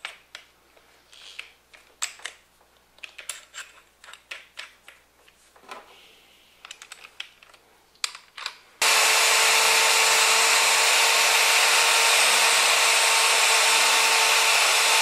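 Clicks and rattles of a drill bit being fitted and the chuck of a corded electric drill tightened, then about nine seconds in the drill starts and runs at one steady speed with a constant whine, drilling out the aluminium water neck of a Ford 5.0L Coyote engine to take a tap for a coolant bleeder screw.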